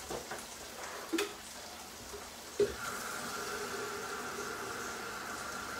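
Sauce in a frying pan sizzling gently over low heat, with a few knocks of utensils on pans, the loudest about two and a half seconds in. Just after that knock a steady whine starts and holds.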